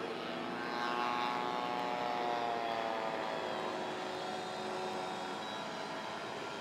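Engine of a radio-controlled model airplane flying past. Its buzzing tone swells about a second in, then slides gradually lower in pitch as the plane passes.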